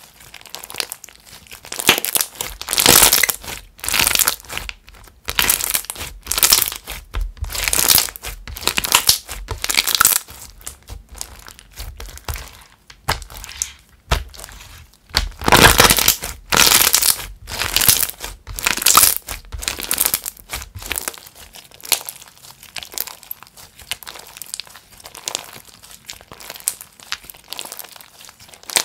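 Thick, creamy slime with small crunchy bits mixed in, stretched, pressed and pulled by hand, giving irregular bursts of crackling and crinkling. The crackling grows sparser and softer near the end.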